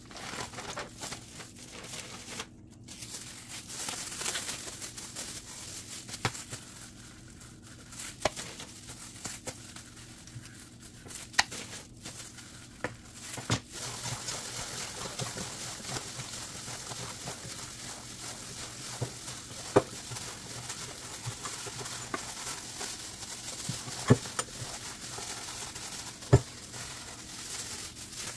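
Plastic bag and thin disposable plastic gloves crinkling while raw meat is squeezed and kneaded into a wet marinade in a stainless steel bowl. A few sharp clicks stand out over the steady rustle.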